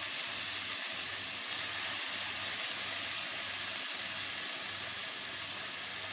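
Oil and kofta masala sizzling steadily in a pan over a low flame while cooked basmati rice is spooned in on top.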